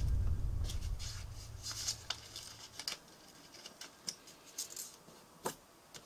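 A sheet of origami paper being folded and creased by hand: scattered short crackles, ticks and rustles as fingers press and smooth the fold. A low rumble fades out over the first couple of seconds.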